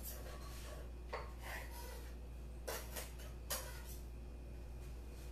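Kitchen knife slicing a preserved red pepper on a wooden cutting board: about half a dozen short knocks of the blade on the board, irregularly spaced.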